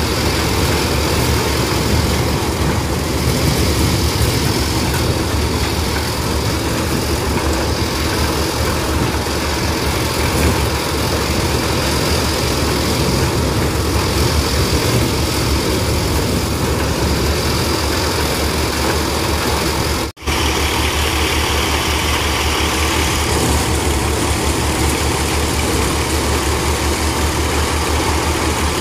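Tractor-driven maize sheller running steadily under the tractor's engine as cobs are fed in, a dense continuous machine noise with a low engine hum. There is a short break in the sound about twenty seconds in.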